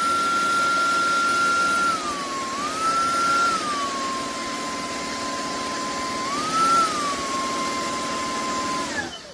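Shark Stratos cordless stick vacuum running, its motor whine stepping up in pitch to a higher power setting and dropping back three times as it is tried at maximum. The motor winds down and stops near the end.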